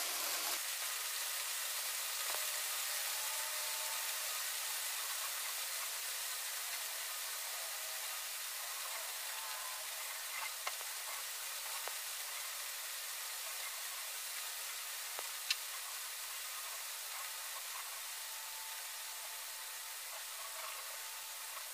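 A steady, even hiss with no low end, slowly growing quieter, with a few faint ticks and one sharp click about fifteen seconds in.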